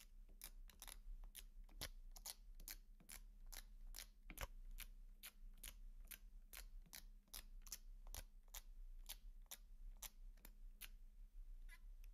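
Faint rapid ticks of a sticky dust-absorber sticker being dabbed onto and lifted off a phone's glass screen, about three a second, stopping near the end.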